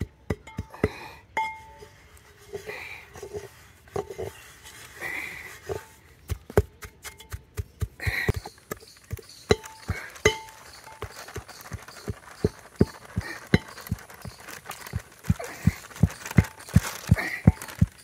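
Pestle pounding in a heavy mortar, a steady run of dull thuds with a slight clink, about two strokes a second and quickening near the end, as flour and egg are pounded into a wet batter.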